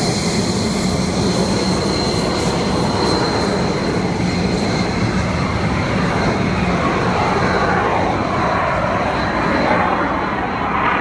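Jet engine noise from a Thunderbirds F-16 fighter flying overhead: a loud, steady rumble.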